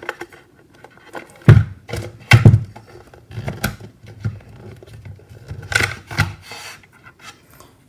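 Handling knocks, clicks and scrapes as a 2014 Mac Mini's internal power supply is twisted and worked free of the tightly packed aluminium case, with the sharpest knocks about one and a half and two and a half seconds in.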